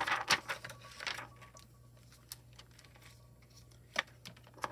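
Soft brush sweeping loose foil off a small foiled paper die-cut heart: a quick series of scratchy rustling strokes in the first second or so, then quiet apart from a single light tap near the end.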